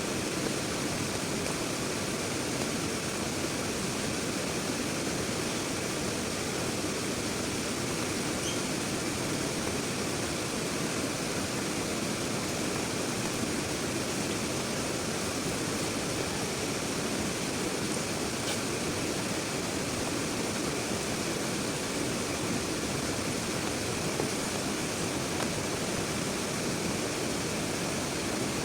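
Heavy rain pouring down steadily, a dense even hiss without a break.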